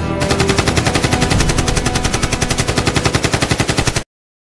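Rapid automatic gunfire from a machine-gun sound effect, about ten shots a second, which cuts off suddenly near the end.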